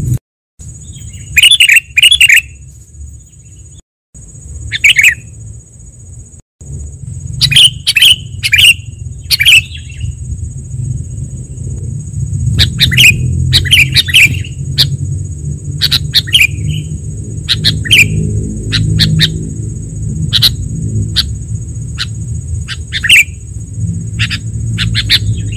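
A recording of sooty-headed bulbuls calling busily, used as a lure track to draw in wild bulbuls: clusters of short, sharp chattering calls come every second or so. Under them runs a steady low rumble and a constant high whine, and the track drops out briefly three times in the first seven seconds.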